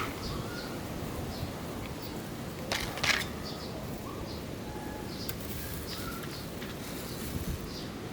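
Outdoor ambience with birds calling: scattered high chirps and a short harsh call about three seconds in.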